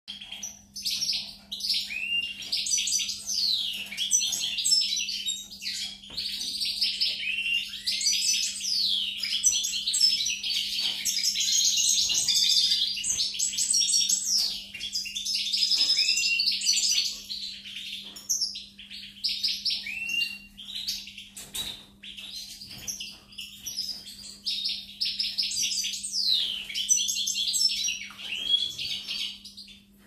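European goldfinch singing: long runs of fast, high, twittering trills and chirps, broken by a few short pauses.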